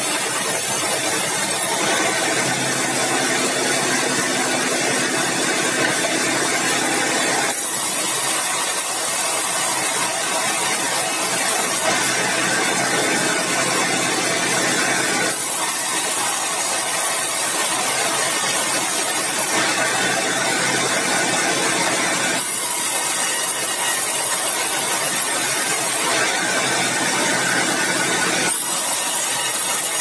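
Band sawmill running and sawing keruing hardwood into boards, a loud steady machine noise with a high hiss. Its sound shifts back and forth four times, stretches with a stronger mid-range hum alternating with brighter hissing stretches, as cuts start and end.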